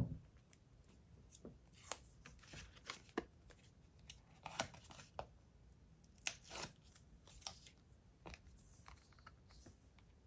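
Faint, irregular paper rustles and small crackles as foam tape and its backing paper are handled and peeled, and a paper sticker is pressed onto a card cover.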